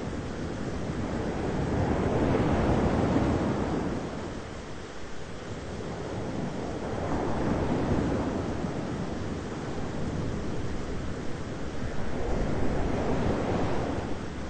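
Thunderstorm ambience: a low, rushing rumble that swells and fades three times, about five seconds apart.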